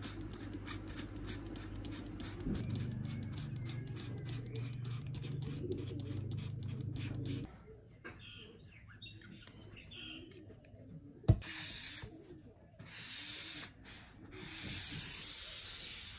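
Plastic trigger spray bottle misting small potted plants: three short hissing sprays in the second half, just after a sharp knock. Before that, a steady low hum with many fine clicks, and a few faint bird chirps in the middle.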